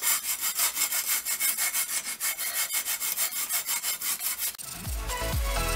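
Sandpaper wrapped around a thin metal rod being worked quickly in and out of the chromed seat tube of a 1984 Raleigh Super Burner BMX, a rhythmic rasping at about four strokes a second as rust is sanded from inside the tube. Near the end the sanding stops and electronic music with a beat comes in.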